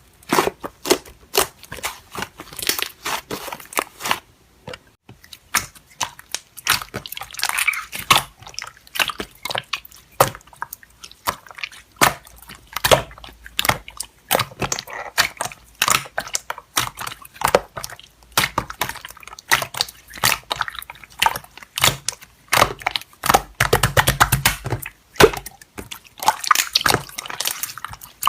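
Slime being squished and pressed by hand, giving off many irregular sticky clicks and crackles, several a second, with wet squelches among them.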